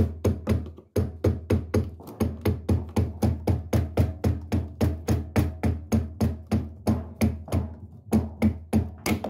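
A screwdriver handle knocking quickly and repeatedly, about five blows a second, on the plastic fan at the back of a tumble dryer motor, driving it off the motor shaft.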